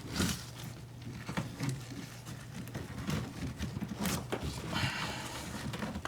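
Scattered light knocks and rubbing from hands working PVC drain pipe and fittings during priming and cementing, over a low steady hum.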